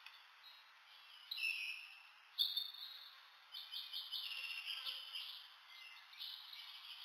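Tiny shrew squeaking and twittering while handled: faint, high-pitched chirps, with short calls about one and a half seconds in and rapid trilled squeaks from about three and a half seconds.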